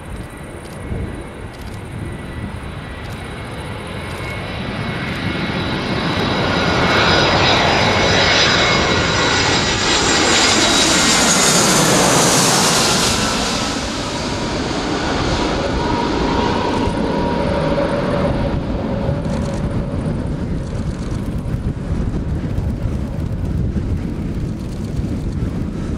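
Aer Lingus Airbus A320 jet airliner on landing approach passing low overhead. The engine noise swells over the first dozen seconds, with a high whine that slides down in pitch as the plane goes past. It then settles into a steadier, lower roar as the aircraft flies on to the runway. A low wind rumble on the microphone runs underneath.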